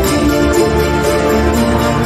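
Instrumental music playing steadily, with held notes that change pitch every half second or so.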